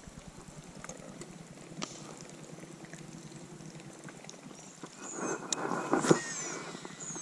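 A baitcasting rod and reel worked with a topwater lure: faint reeling at first, then a louder swish about five seconds in as the rod is swung into a cast. A few short, high chirps sound during the cast.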